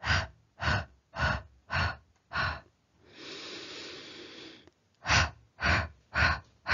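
A person panting: a run of short, sharp breaths about two a second, one slower, longer breath in the middle, then more short pants. This is the panting breath used with little pushes while the baby's head is delivered in labour.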